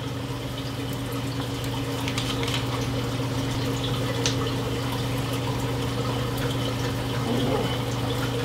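Reef aquarium sump running: water trickling and splashing steadily over a constant low pump hum, with a faint click about four seconds in.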